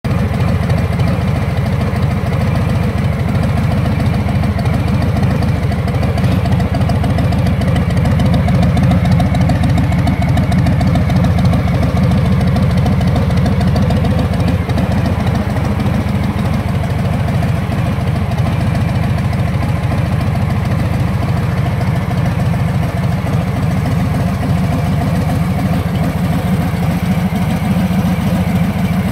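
2018 Harley-Davidson Fat Bob 114's Milwaukee-Eight 114 V-twin idling steadily through aftermarket Cobra El Diablo mufflers, tuned with Direct Link. The exhaust note is low and moderate rather than crackling.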